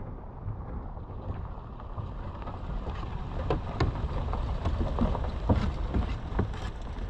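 Wind buffeting the camera microphone as a low, rumbling haze. Scattered short, sharp knocks and taps come more often after about three seconds.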